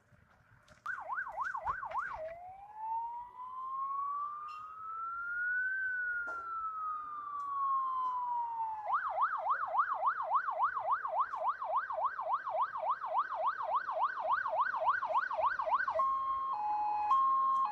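Fire engine's electronic siren: a brief fast yelp, then one slow wail rising and falling over about six seconds, then a fast yelp of about three sweeps a second. About a second before the end it changes to a two-tone hi-lo pattern.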